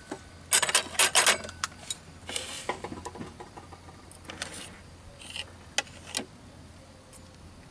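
Cutlery clinking and scraping on a plate while eating: a quick run of sharp clinks, then scattered taps and rustling, with a faint low hum underneath.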